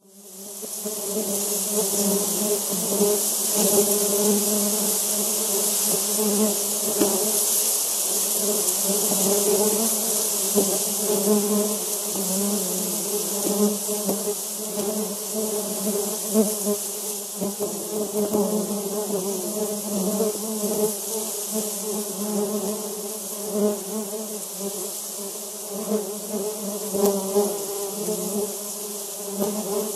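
Recording of a mass of honey bees buzzing: a dense, steady hum with overtones and a hiss above it, fading in at the start.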